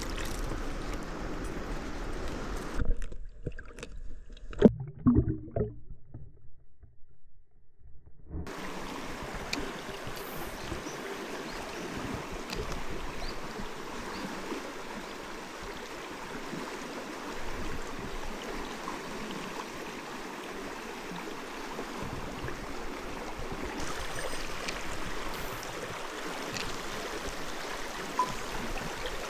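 Clear mountain stream flowing, a steady rush of water. About three seconds in, the sound goes muffled for several seconds, with a few loud knocks and splashes, before the open rush returns.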